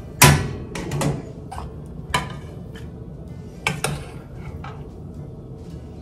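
Spoon clinking and scraping against a stainless steel pot and a bowl as cooked rice is scooped out: a run of sharp taps and clinks, loudest near the start, thinning out in the last couple of seconds.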